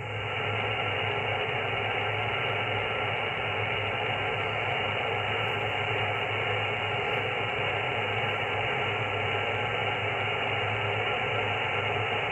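Yaesu FT-901DM HF transceiver receiving on the 10 m sideband with no station transmitting: steady band-noise hiss from its speaker, confined to the narrow voice passband, with a low hum underneath.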